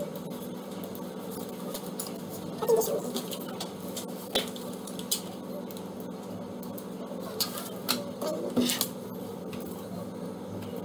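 Scattered clicks and taps of a small plastic computer mouse being handled and fitted together, heard over a steady low hum.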